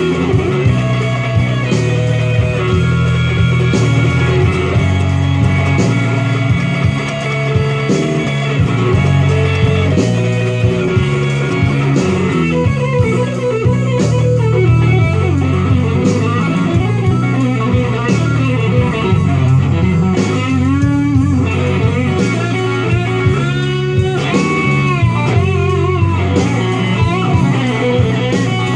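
Fender Stratocaster electric guitar playing a slow blues lead, with bent notes in the second half, over a steady bass line.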